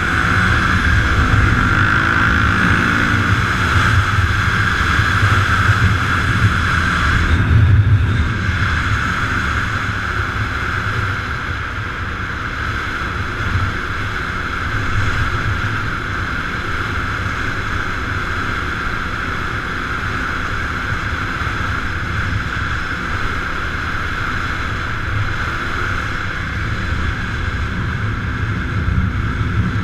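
A vehicle engine running with heavy wind noise on the microphone, as on a moving ride; the engine revs up near the start, then holds a steady drone.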